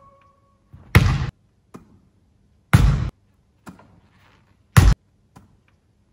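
Volleyball thuds in a gym hall, three loud ones about two seconds apart, each with a short echo, as the ball is repeatedly back-passed and comes down again.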